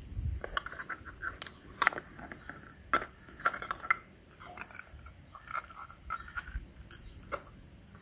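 Light clicks and knocks of hollow plastic toy fruit and vegetable pieces being picked up and set down, with the sharpest knocks about two and three seconds in. Faint bird chirps sound now and then.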